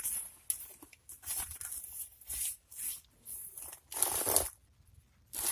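Rustling and crinkling as a nylon sling bag is handled, in short uneven bursts, the loudest about four seconds in.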